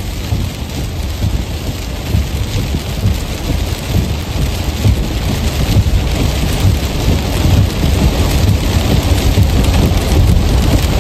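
Steady rush of wind and road noise from a car driving at highway speed, with a heavy low rumble that gets slightly louder over the stretch.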